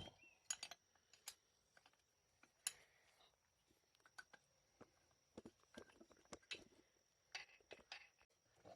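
Faint, scattered clicks and light knocks of tools and metal engine parts being handled while the top end of a Yamaha Blaster two-stroke engine is taken apart, a dozen or so sharp taps at irregular intervals.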